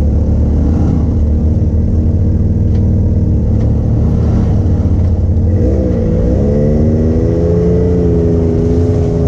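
Can-Am Maverick side-by-side's engine running at low trail speed, its pitch dipping and then climbing about six seconds in as the throttle is opened, then holding at the higher speed.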